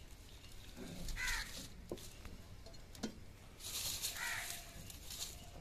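A crow cawing twice, harsh calls about three seconds apart, with a few faint clicks from dry twigs as kindling is lit in a mud stove.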